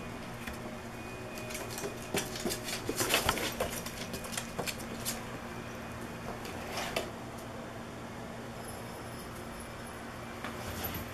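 Ferrets scrabbling and rustling among fabric play toys and a cardboard box on a wooden floor, their claws clicking and pattering. There is a dense flurry of rustles and clicks a couple of seconds in, another around seven seconds, and a steady low hum underneath.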